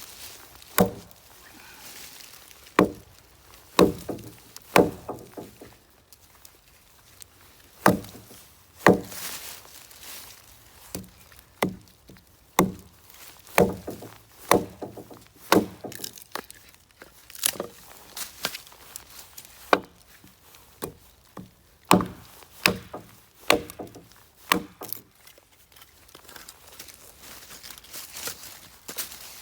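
Firewood being chopped or split, a long series of sharp woody knocks about a second apart at irregular intervals, which stop a few seconds before the end.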